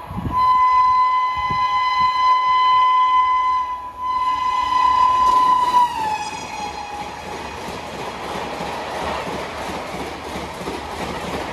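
Horn of an Indian Railways WAP-7 electric locomotive sounding in two long blasts as an express train passes at about 130 km/h. The second blast drops in pitch as the locomotive goes by, then the passenger coaches follow with a steady rush and fast, even wheel clatter.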